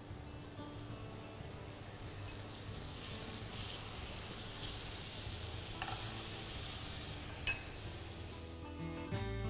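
Food sizzling in hot oil in a frying pan, a steady hiss with two light knocks of a utensil on the pan. The sizzle cuts off near the end and music starts.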